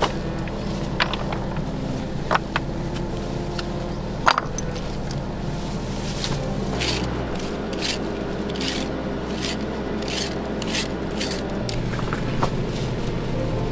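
Scraping and rubbing strokes with scattered sharp knocks, a quick run of repeated scrapes in the middle, over a steady low hum.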